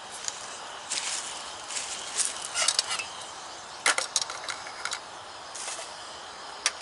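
Camp stove burner hissing steadily while metal camp pots and their wire handles clink and clatter against the stove's steel grate as they are set on the burners, with several sharp knocks about two and a half and four seconds in.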